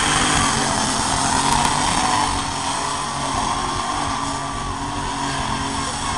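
John Deere 7830 pulling tractor's diesel engine running hard as it drags the weight sled down the pulling track, with a steady high whistle over the engine note. It fades slightly a couple of seconds in as the tractor moves off down the track.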